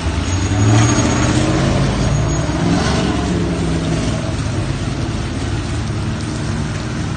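A vehicle's engine revving and running as it drives by, loudest about a second in, over a steady hiss of rain.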